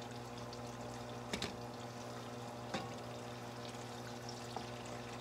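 Bacon frying in a pan, a steady sizzle with a few sharp pops, over a low steady hum.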